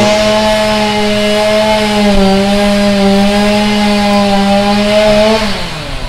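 Chainsaw running at high revs with a steady whine, then slowing down, its pitch falling, about five and a half seconds in.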